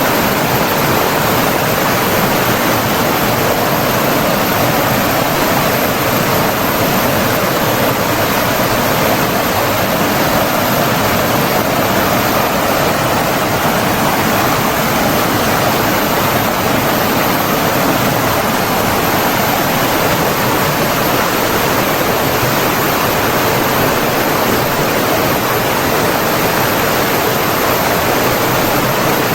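Flowing water rushing steadily, like a stream or small waterfall: an even, unbroken hiss with no changes.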